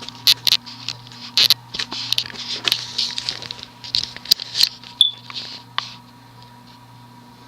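Irregular scratchy clicking as the fan's variable-speed control knob is turned up to medium, over the steady low hum of the cast-iron ceiling fan motor. The clicking stops about six seconds in, leaving only the motor hum.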